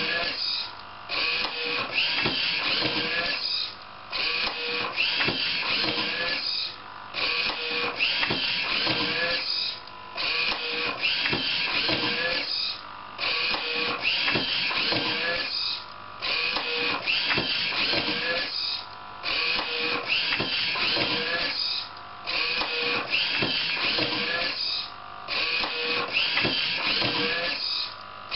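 DIY automatic book scanner's page-turning mechanism running in repeated cycles, a continuous machine whir broken by a short pause about every three seconds as each page is turned and shot.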